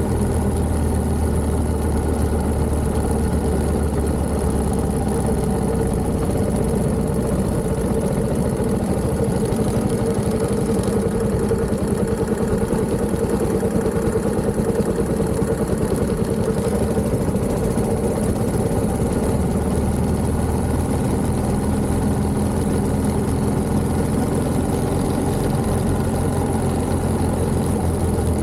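1929 Méray motorcycle's JAP 600 engine running steadily, its low note easing off for a while in the middle before coming back.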